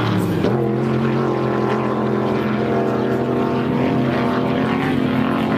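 Off-road race vehicle's engine running at high, nearly steady revs, its pitch settling about half a second in and holding.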